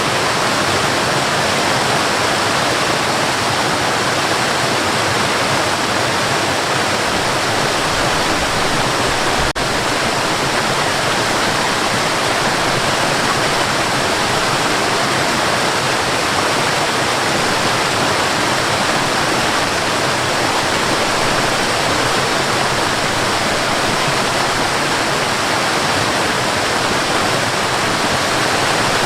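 Waterfall: a steady, dense rush of falling water, with a single brief click about nine and a half seconds in.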